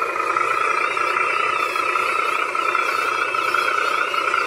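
Radio-controlled model truck running steadily, a continuous whine from its small electric motor and gears.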